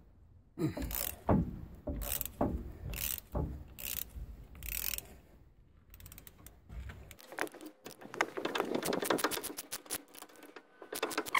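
Socket ratchet wrench clicking as it loosens the bolts on a hydraulic cylinder's gland. First come several separate strokes, then from about six seconds in a faster run of dense clicks.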